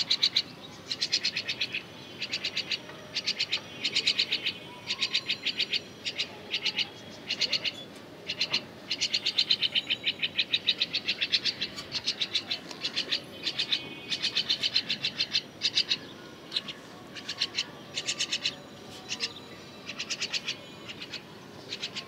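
Baby myna begging for food with its beak open: fast runs of harsh chirps in short bursts, one burst after another.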